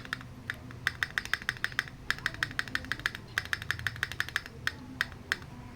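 Typing on a Keychron Q2 mechanical keyboard fitted with Akko Cream Black V3 Pro linear switches: quick runs of keystrokes with short pauses between them, stopping shortly before the end.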